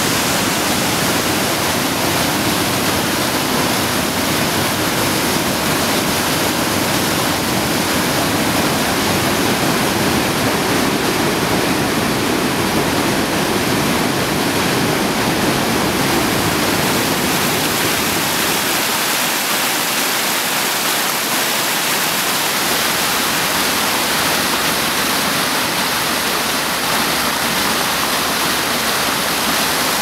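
Steady loud rush of whitewater pouring through rocky rapids and small falls. About two-thirds of the way in the deep rumble drops away, leaving a lighter, hissier splash of water over rock slabs.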